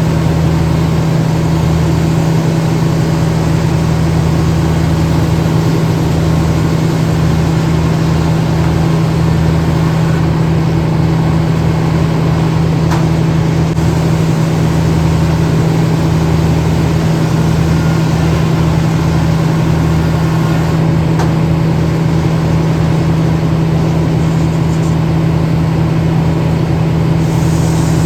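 Engine running at a steady speed, a constant low drone with no let-up.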